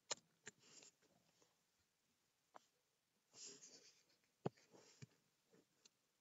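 Near silence broken by a few scattered soft clicks of a computer mouse and keyboard, the loudest about four and a half seconds in, with a soft breath a little before it.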